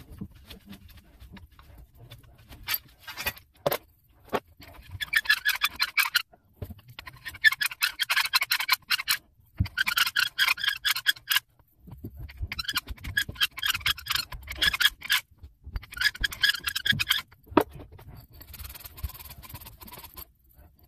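Copper pipe being scrubbed clean by hand: rapid back-and-forth scraping strokes in several bursts with short pauses between them, preparing the pipe for a tee fitting. A few sharp knocks come about three to four seconds in.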